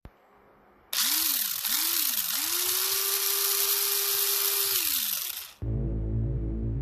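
Intro sound effect: a loud hiss with a whistling tone that swoops up and down twice, then holds steady and slides down, cutting off suddenly about five and a half seconds in. Music with a low hum starts right after.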